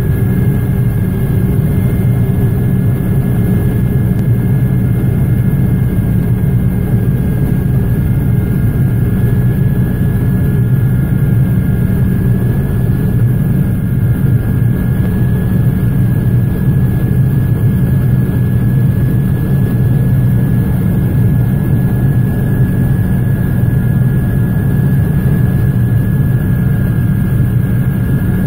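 Helicopter heard from on board: a loud, steady drone of rotor and engine with a constant high whine over it, unchanging throughout.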